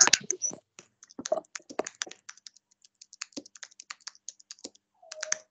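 Typing on a computer keyboard: quick, irregular runs of key clicks.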